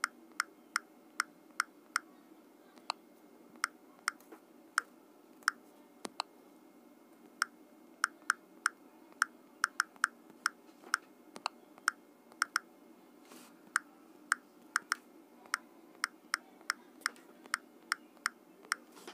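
Smartphone on-screen keyboard key-press clicks as an email address is typed: short sharp clicks at an irregular typing pace, a few a second with brief pauses, over a faint steady hum.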